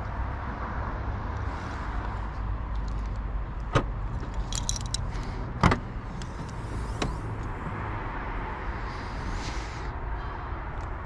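Cabin of a Mini Cooper SE electric car: a steady low rumble with three sharp clicks or knocks, the loudest a little past halfway, and a brief high rattle just before it.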